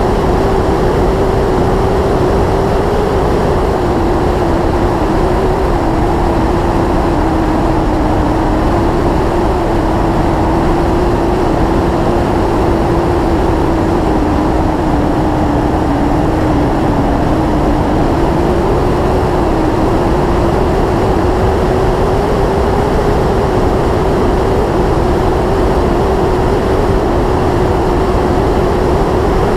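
Yamaha YZF-R6S sport bike's inline-four engine running at a steady cruising pace. Its note dips slightly about halfway through and rises again, over a constant rush of noise.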